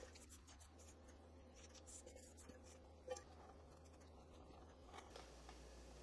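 Near silence, with faint scraping of a spatula through buttercream frosting and one light knock about three seconds in.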